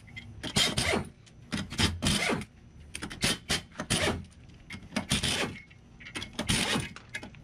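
Nuts being spun off the threaded studs of a wheel spacer on an axle hub by hand: a series of short metal-on-metal rasping scrapes, about one a second.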